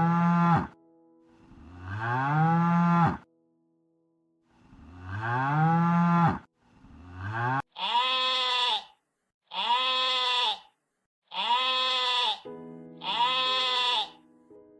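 A cow mooing three times, each low call rising in pitch. Partway through it gives way to a sheep bleating four times, each shorter, higher call lasting about a second.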